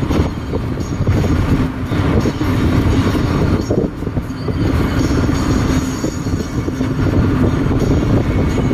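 Steady road rumble and engine hum inside a moving car's cabin, heard while driving.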